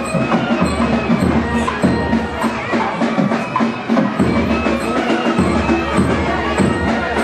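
Live procession music: drums beating steadily under a held, gliding melody line.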